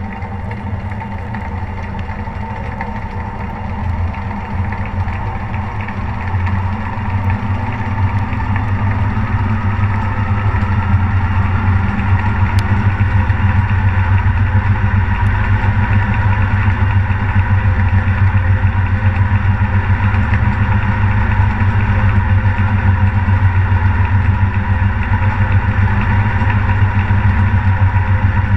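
Beko washing machine going into its final spin, heard from inside the drum: the motor whine rises in pitch and the sound grows louder over the first ten seconds or so as the drum speeds up, then holds a steady fast spin with a deep hum.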